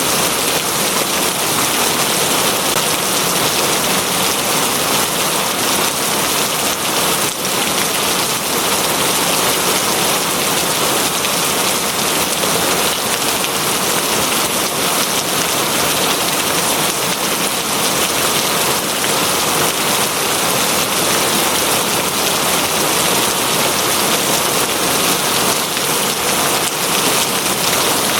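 Steady heavy rain falling on a surface, an even hiss of many drops without let-up.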